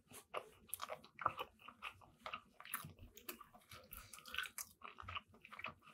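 Close-miked mouth chewing a soft Subway sub roll with fresh mozzarella: quiet, irregular wet clicks and smacks, a few each second.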